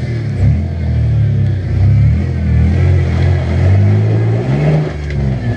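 Toyota Tacoma pickup's engine revving up and down under load as the truck crawls over rock, its pitch rising and falling several times.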